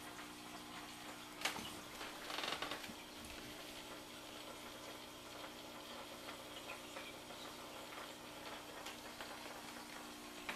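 Aquarium powerhead running with its air venturi drawing in air: a faint steady hum with a hiss of fine bubbles. A sharp click comes about a second and a half in, and a brief rustle comes about a second later.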